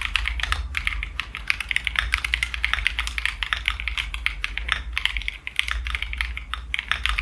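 Rapid, continuous typing on an Akko ACR Pro 75 mechanical keyboard, keystrokes clacking several times a second with a short lull about five seconds in, over a low steady hum.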